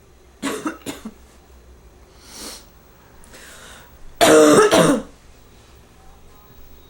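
A person with bronchitis coughing: two quick coughs near the start, softer sounds in between, then a longer, loud bout of coughing about four seconds in.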